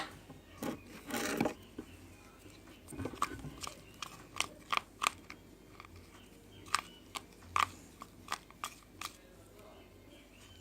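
Sticky glue-and-soap slime being worked with a spoon in a bowl: a string of short, irregular wet clicks and smacks.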